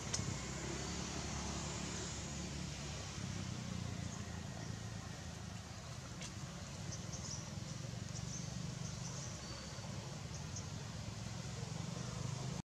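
Steady outdoor background noise with a low rumble, with a few faint high chirps around the middle and a faint click about six seconds in.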